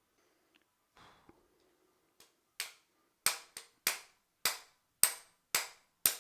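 Sharp metal-on-metal taps, about two a second, starting about two seconds in and growing louder, each with a short ring: a tool striking the derailleur's stuck bolt to free it.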